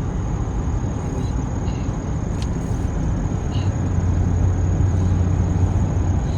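Car driving, heard from inside the cabin: steady engine and road rumble, with a low drone that grows louder about four seconds in. A single faint click about two and a half seconds in.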